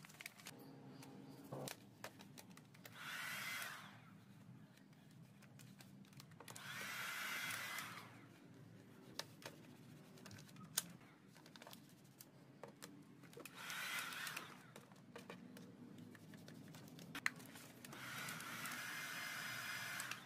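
Handheld hot-air blower run in four short blasts, about a second or two each, to soften vinyl wrap film as it is stretched over a scooter's front fairing. Between the blasts come light crackles and clicks of the film being handled and pressed down.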